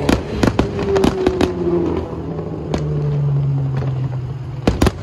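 Aerial fireworks shells bursting: a quick run of sharp bangs in the first second and a half, another about three seconds in, and two close together near the end, over a steady low hum of car engines.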